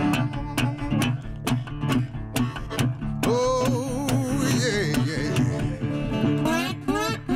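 Background music: strummed acoustic guitar over a steady beat, with a wavering melody line in the middle.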